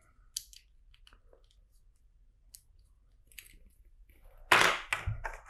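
Small plastic clicks and taps of LEGO track pieces and bricks being handled and fitted together. About four and a half seconds in comes a louder, half-second rustling clatter.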